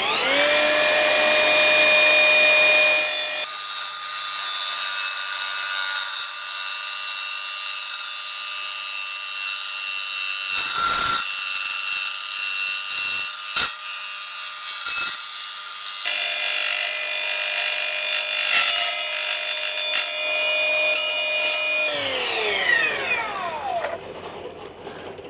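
Evolution multi-material mitre saw: its motor spins up and holds a steady whine. For about twelve seconds the blade cuts through steel angle iron with a loud, high-pitched grinding rasp and a few sharp knocks. Then the saw runs free and winds down, its whine falling in pitch near the end.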